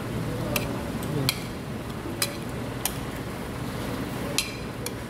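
Metal spoon clinking and scraping against a ceramic plate, about six sharp clinks spread out over a few seconds, over a steady background hum.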